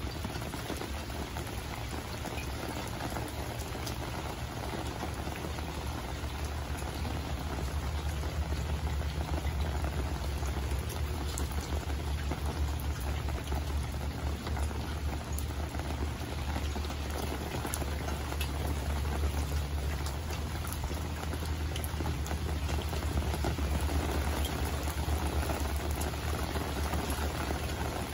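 Steady rain falling on a swimming pool's water and the surrounding concrete deck: a dense patter of drops, growing slightly heavier after several seconds, with a steady low rumble underneath.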